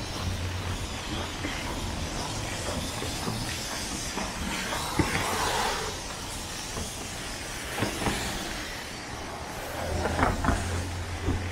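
City street ambience: steady traffic noise, with a low engine hum in the first second or so and again near the end, and a few sharp clicks along the way.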